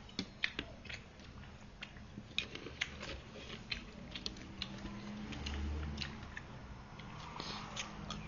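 Close-up eating sounds: a person chewing a mouthful of pork noodle soup, with irregular wet mouth clicks and smacks. A low hum swells briefly around the middle.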